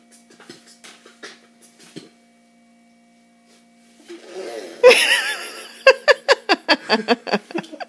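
A man beatboxing. A wavering vocal tone starts about four seconds in, and from about six seconds it turns into a fast run of sharp percussive mouth sounds, about five a second.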